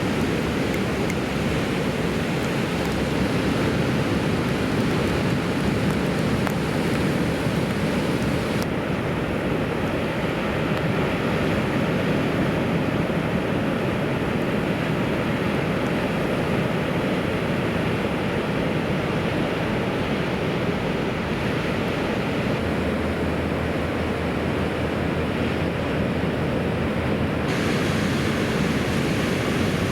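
Ocean surf breaking and washing, with wind buffeting the microphone: a steady rushing noise at an even level. The high hiss drops out abruptly about nine seconds in and comes back shortly before the end.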